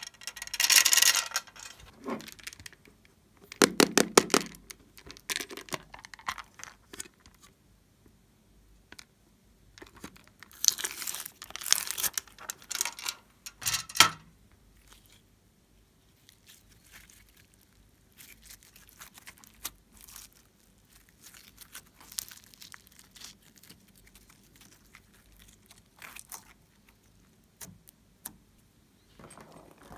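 Slime being squeezed out of plastic containers and pressed into a glass dish: sticky crackling and popping in bursts of rapid clicks, loudest about four seconds in and again from about eleven to fourteen seconds, then fainter handling.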